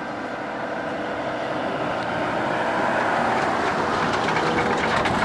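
Audi A6 estate towing a car trailer over a brick-paved road: tyre rumble and trailer rattle on the bricks, growing louder as it draws near and passes.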